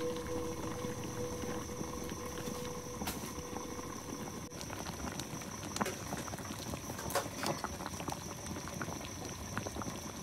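A large pot of noodle soup boiling with a steady bubbling, and a few light clicks of utensils.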